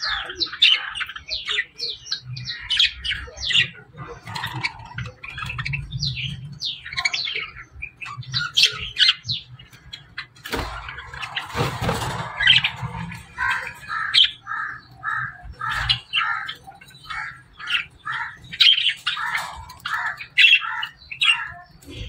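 A flock of budgerigars chattering: many overlapping quick chirps, warbles and squawks. A short run of evenly repeated chirps follows a brief rustling noise about halfway through.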